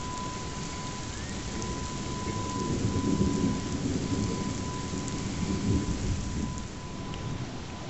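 Distant outdoor tornado warning siren holding one steady tone that rises and fades in loudness, over a low rumble that swells twice, about three and six seconds in.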